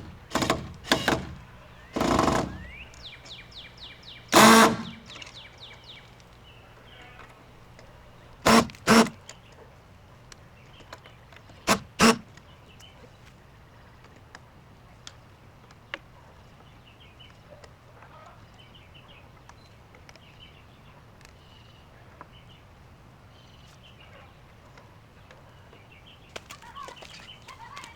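Songbirds chirping faintly in the background, broken by several loud, short noisy bursts, some in pairs, during the first twelve seconds or so.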